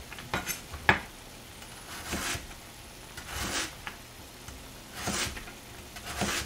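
Kitchen knife slicing through a raw Korean radish (mu) with gentle push cuts, each stroke a short scraping slice ending in a light knock on the cutting board, about six strokes roughly a second apart.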